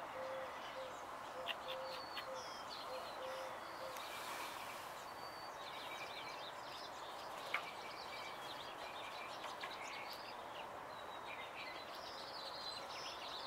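Background birdsong: scattered short chirps and twitters from several small birds over a steady outdoor hum, with a low note repeated about twice a second through the first few seconds.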